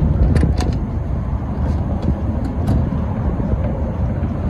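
Steady low rumble, with a cluster of sharp metal clicks in the first second and a few fainter clicks later, from a wrench working on an oil drain bolt that is stuck very tight.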